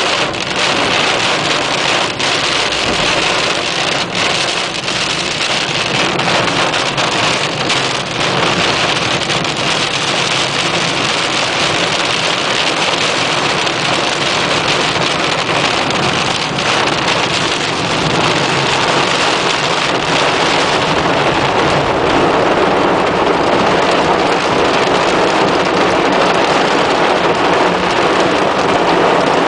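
Heavy rain pelting a car, heard from inside, as a dense steady hiss with a few sharp taps in the first several seconds. It grows a little louder past the middle.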